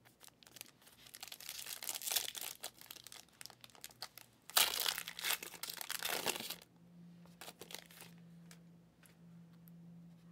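Foil trading-card pack wrapper crinkling as it is handled and torn open, loudest for about two seconds around the middle; then a few light ticks as the cards are handled.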